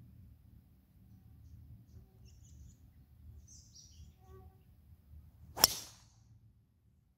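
A golf driver striking a teed ball on a full-swing tee shot: one sharp crack about five and a half seconds in, with a brief ring after it.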